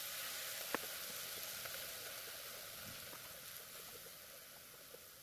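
Hot cookware on a gas stove hissing and sizzling steadily, the hiss slowly dying away as it cools off the heat, with one light click about a second in.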